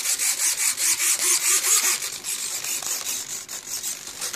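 Control-surface servos of an FMS A-1 Skyraider V2 foam RC plane buzzing in a fast, even run of short bursts as its 3-axis gyro drives the ailerons, elevator and rudder against the plane being tilted by hand. The bursts are loudest for about the first two seconds and weaker after.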